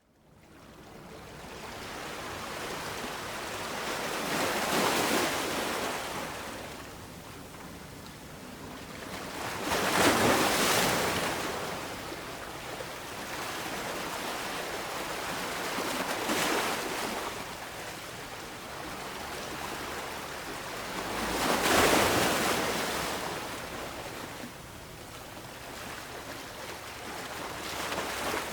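Ocean waves breaking and washing on a shore, rising and falling in swells about every five to six seconds, the strongest about ten and twenty-two seconds in. The sound fades in over the first second or two.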